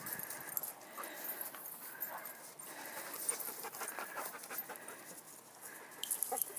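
Dog panting as it noses and slides through snow, with scattered soft crunches.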